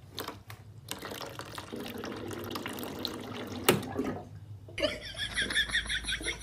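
Water running from a water dispenser's tap for about three seconds, with a sharp click just before the flow stops. Then a fast run of small, evenly repeated sounds begins near the end.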